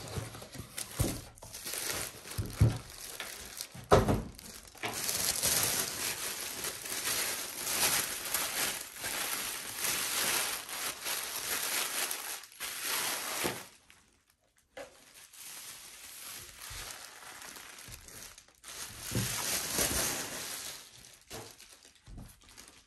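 Thin plastic wrapping crinkling and rustling as it is pulled off a subwoofer during unpacking: a long stretch of crinkling through the middle and a shorter one near the end. A few knocks in the first four seconds come from the packing being handled.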